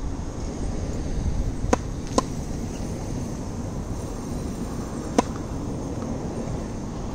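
Sharp pops of a tennis ball being struck on a serve rally: two close together about a second and a half in, and a louder one about five seconds in, over a steady low background rumble.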